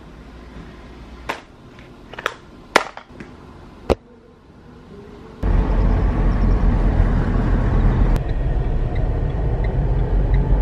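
Steady low rumble of road and engine noise heard inside a moving car, starting suddenly about five seconds in. Before it, a few small clicks and taps over quiet room tone.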